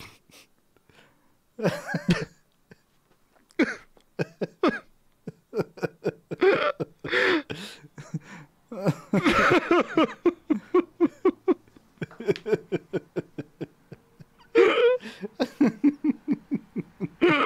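A man's laughter, stifled behind his hand, coming in several fits of short rapid bursts.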